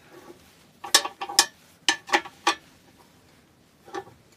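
Spanner clinking on the nut of a lathe tailstock as it is tightened onto the bed: short metallic clicks in two quick clusters about one and two seconds in, and one more near the end.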